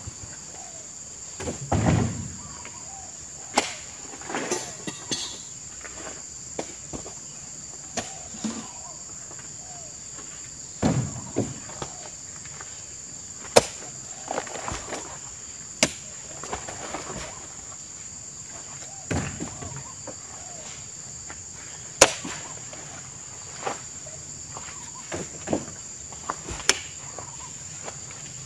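Heavy oil palm fruit bunches being speared and heaved into a truck with a spiked pole, making irregular knocks and thuds every second or two. A steady high insect drone runs underneath.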